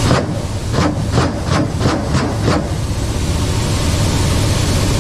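Ka-52 attack helicopter in flight heard from inside the cockpit: a steady drone of turboshaft engines and coaxial rotors under a loud hiss. A run of sharp knocks, about three a second, comes in the first two and a half seconds.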